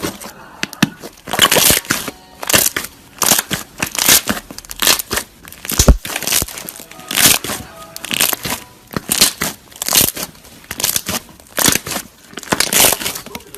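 Slime being pressed and squeezed, crackling and popping in repeated squishes about once a second.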